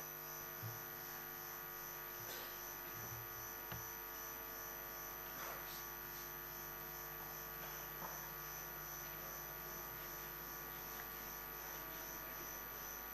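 Low steady electrical hum, a stack of unchanging tones, with a few faint scattered knocks and clicks.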